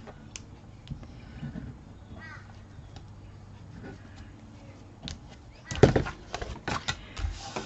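Hands working paper on a craft table: faint ticks at first, then a cluster of sharp clicks and rustles of paper being pressed and burnished down from about six seconds in.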